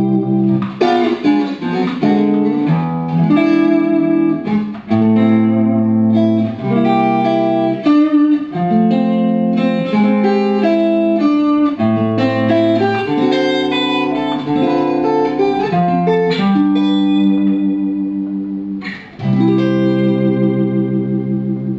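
Suhr Classic Antique Stratocaster electric guitar played on its neck pickup: a run of ringing chords and melodic fills, changing every second or two. Near the end one chord fades out briefly before the playing picks up again.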